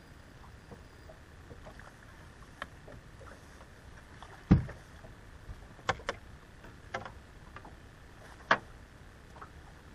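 A few hard knocks and thumps against a boat's deck as a fish is brought aboard and handled. The loudest, a heavy low thump, comes about halfway through. A second sharp knock comes near the end, with a few lighter ones between them.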